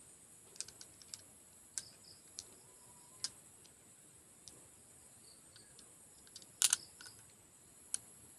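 Small glass bottles clicking lightly against one another as they are shifted about in a hand: scattered sharp clicks, the loudest a quick double click about two-thirds of the way through.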